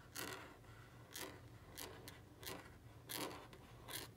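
Caran d'Ache Fibralo brush-tip marker drawn across notebook paper in lettering strokes: about half a dozen short, faint, scratchy strokes.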